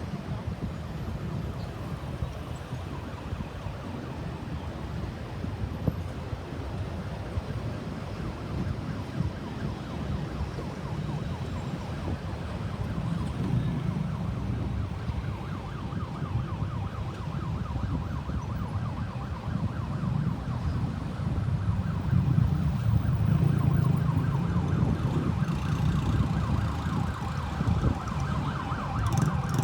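Ambulance siren in a rapid warble, faint at first and growing steadily louder from about halfway through, over a low rumble of road traffic.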